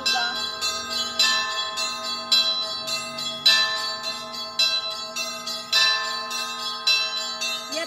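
Russian Orthodox church bells ringing an Easter peal: several bells struck one after another, a fresh strike about every half second, their tones ringing on and overlapping.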